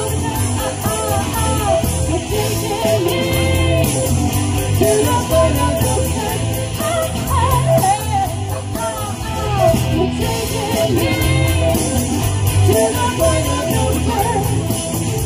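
Live rock band playing an 80s pop-rock cover: a woman singing lead over electric guitar, bass and drums with a steady beat.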